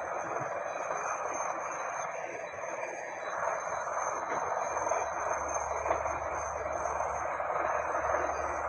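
Steady outdoor background noise, a hiss-like rush with faint steady high-pitched whines above it; a low rumble joins about halfway through.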